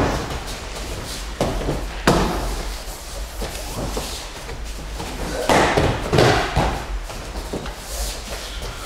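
Thuds of a training partner being thrown and hitting the dojo mats during aikido throws, with bare feet shuffling on the mat between the falls. Several sharp knocks come in the first couple of seconds, and a louder stretch of falling and scuffling comes a little past the middle.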